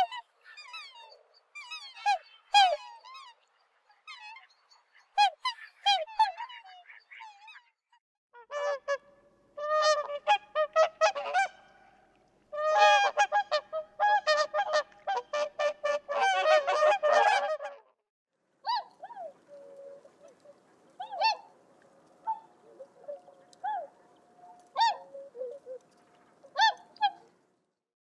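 Black swan calls, short notes that bend in pitch, for the first third. Then, after a brief gap, a whooper swan gives a dense run of loud, bugling honks. After another gap, for the last third, there are sparser calls from another bird over a faint hiss.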